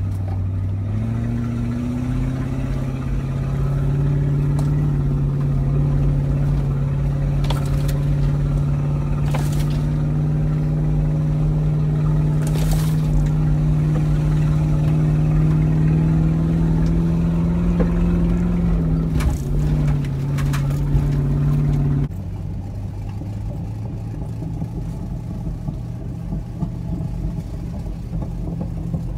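Toyota Land Cruiser 100's V8 engine pulling steadily uphill on a dirt track, heard from inside the cab: the engine note rises about a second in and holds, with a few sharp knocks from the rough track. It eases off around 19 s, and about 22 s in the sound drops abruptly to a lower, rougher drive.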